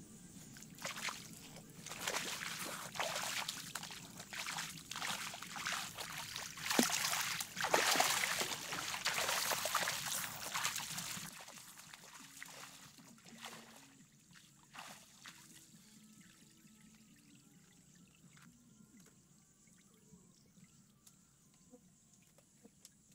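Water splashing and trickling in irregular bursts, loudest about seven to ten seconds in, then dying away about eleven seconds in.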